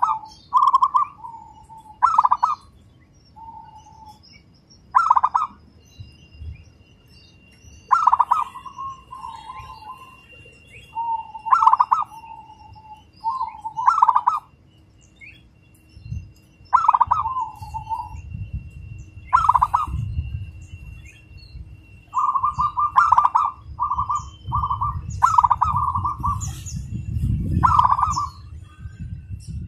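Zebra dove (perkutut) cooing: repeated phrases, each a loud opening note followed by a fast, close-set run of short coos. The phrases come every couple of seconds and crowd closer together near the end.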